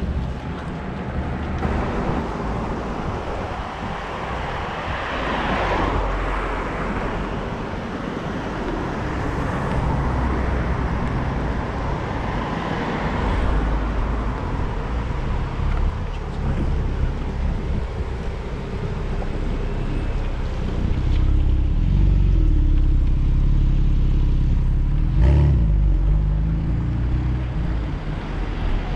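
Road traffic: cars passing on the road, the loudest about five seconds in, over a steady low rumble, with a short sharp knock near the end.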